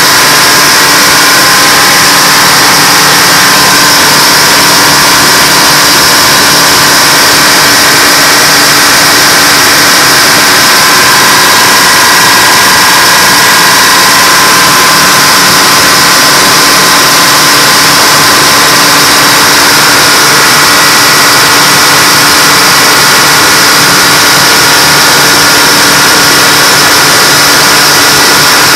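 Twin Detroit Diesel 6-71 two-stroke inline-six diesels, coupled through a common gearbox to a generator, running together loud and steady. The engine note holds even with no hunting: the two governors are not fighting each other.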